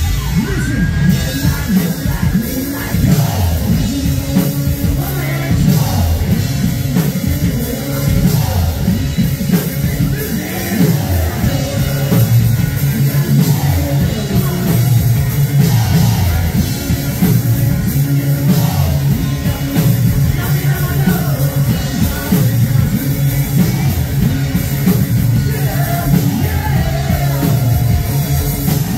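Live rock band played through outdoor PA speakers: a male lead vocalist singing over electric guitars, bass guitar and a drum kit.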